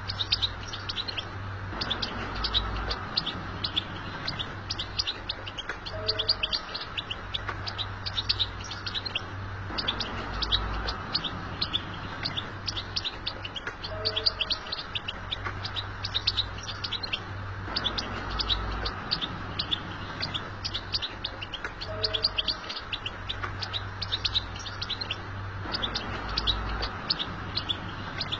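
European goldfinch singing: a fast, continuous stream of twittering chirps and trills. The same passage repeats about every eight seconds, as in a looped recording.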